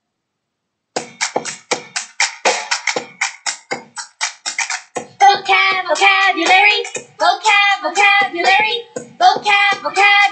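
Backing track of a vocabulary chant song: a sharp, even beat starts about a second in, and singing comes in over it at about five seconds.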